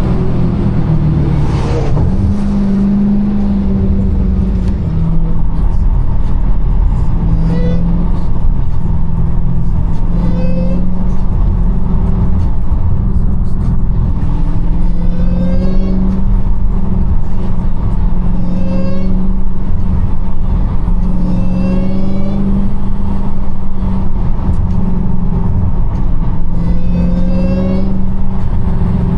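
Supercharged 6.2-litre Hemi V8 of a 2021 Dodge Charger Hellcat running under way, a steady low drone, with a short rising whine that comes back every few seconds.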